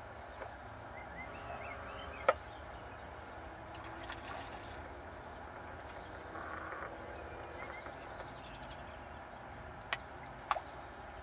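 Quiet outdoor ambience: a steady low hiss with a few faint chirps. A sharp click comes about two seconds in, and two more clicks near the end.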